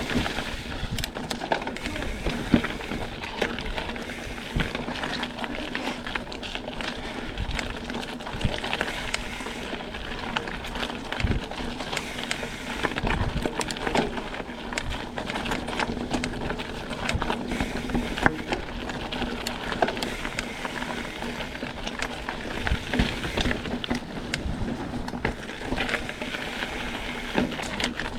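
Mountain bike riding a rocky trail: steady tyre and wind noise with frequent knocks and rattles from the bike, and a faint steady hum underneath.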